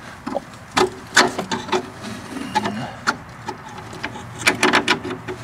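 Light metal clicks, taps and scrapes of a suspension bolt being handled and fed into the rear lateral link's mounting hole, with a quick run of clicks near the end.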